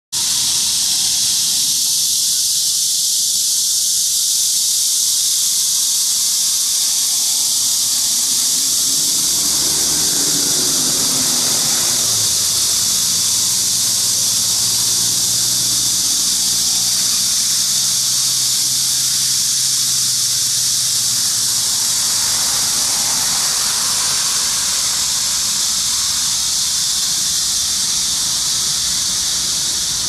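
Korean horse cicadas (Cryptotympana dubia) singing in a steady chorus, a continuous high-pitched buzzing hiss.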